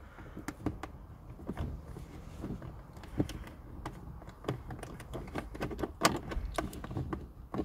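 Light, irregular clicks and taps of fingers working a Torx screw loose from a car's plastic glove box, with a few sharper clicks about three and six seconds in.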